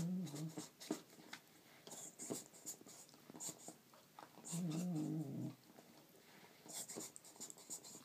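Border Collie making low, wavering whining-groaning noises while mouthing her toy: a short one at the start and a longer one of about a second midway. Short clicks and scuffs of chewing come in between.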